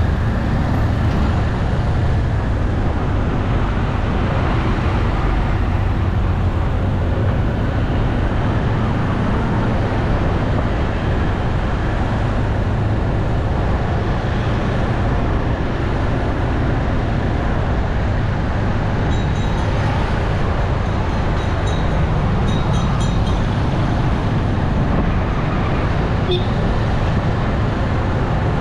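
Steady street traffic noise, with passing engines blending into a continuous rumble. A short run of faint, high-pitched beeps comes about two-thirds of the way through.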